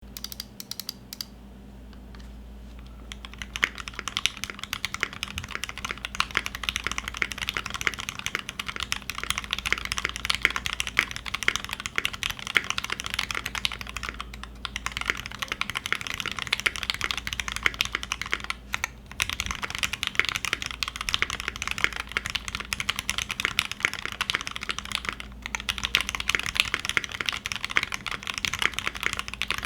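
Typing on a Cannonkeys Satisfaction75 mechanical keyboard with lubed Gateron Ink Black V1 linear switches in a brass plate and GMK keycaps. A few keystrokes come at the very start, then a fast, continuous stream of keystrokes begins about three and a half seconds in, broken by short pauses.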